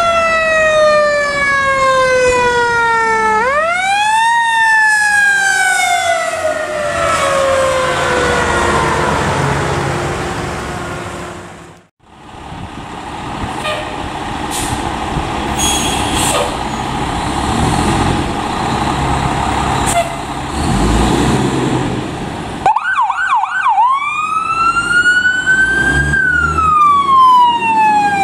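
Fire truck sirens. First a siren winds down in pitch, swings quickly back up a few seconds in, then slowly winds down again. After a cut, a fire truck's engine runs with a few clicks and knocks. Near the end an electronic siren yelps briefly, then wails up and down.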